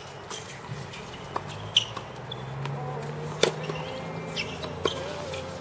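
Tennis balls struck with a racket and bouncing on the court: a few sharp pops, the loudest about three and a half seconds in, over a low steady hum.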